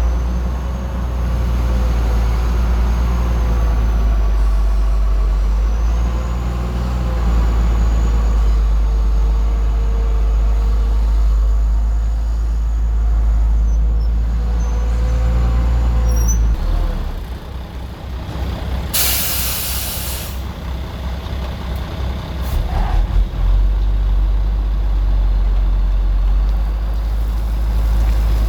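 Heavy diesel earthmoving machinery running, a steady low engine drone with a whine over it. About 17 seconds in the engine note drops. Around 19 seconds in there is a loud hiss of released air lasting about a second, followed by a knock a few seconds later.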